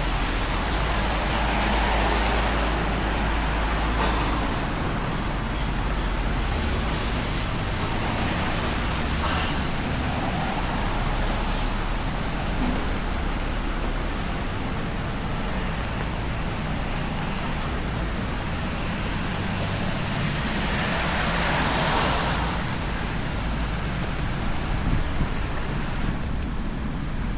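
Steady hiss of rain and traffic on wet city streets, with louder swells as vehicles pass; the biggest swell comes about three-quarters of the way in.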